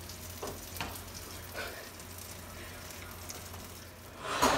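A pot of water boiling steadily as gnocchi are skimmed out, with a few light clinks of a wire-mesh skimmer against the pot. A brief louder noise comes near the end.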